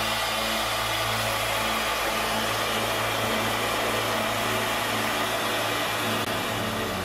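Helicopter cabin noise in flight: a steady drone of engine and rotors with a constant low hum.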